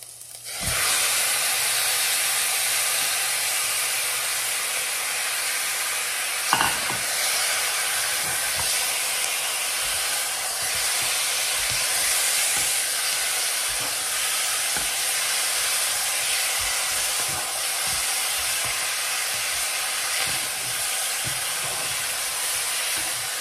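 Raw chicken pieces hitting hot oil in a pot and sizzling, starting suddenly about half a second in and going on as a steady hiss while a spatula stirs them. There is a brief knock about six and a half seconds in.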